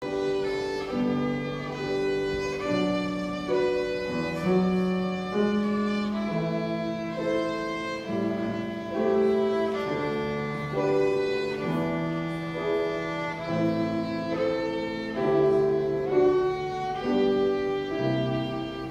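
Solo violin playing a slow lullaby melody of long held bowed notes, accompanied on a Petrof grand piano.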